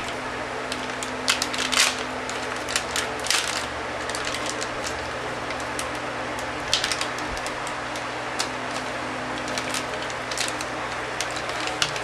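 Clear plastic wrapping crinkling and crackling in short irregular clusters as a RAM module is unwrapped by hand, over a steady background hiss and faint hum.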